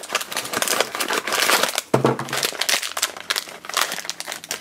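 Small cardboard blind box being opened and the silver foil bag inside pulled out and crinkled in the hands: a dense crackling, with a sudden louder crackle about two seconds in.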